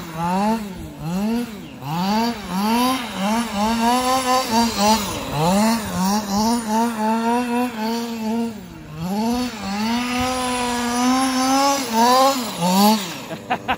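Losi 5IVE-T 2.0 RC truck's two-stroke petrol engine revving up and down in quick throttle blips, about two a second, with a few longer held revs in between. The engine is being run in at gentle throttle.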